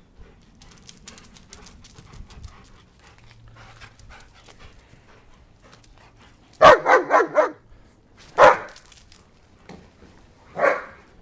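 German Shepherd barking: a quick run of about four barks some six and a half seconds in, then a single bark about a second later and another near the end.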